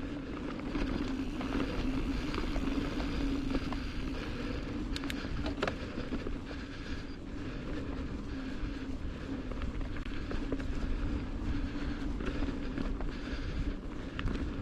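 Mountain bike riding over a dirt trail: steady tyre rumble with wind on the microphone and a constant hum, and a few sharp rattles about five to six seconds in.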